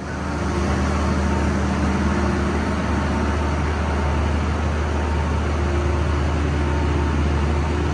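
Tractor diesel engine running steadily, an even low drone.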